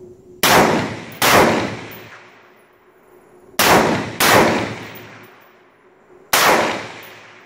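Stag Arms AR-15-style rifle fired five times in deliberate semi-automatic fire: two quick shots, a pause, two more, then a single shot. Each sharp report trails off in a long echo lasting about a second.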